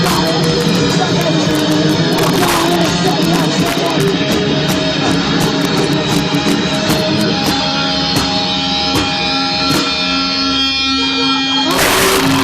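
Live punk/hardcore band playing loud, distorted electric guitars and drums, recorded with heavily distorted sound. Held notes ring from about seven seconds in, then a loud crash near the end.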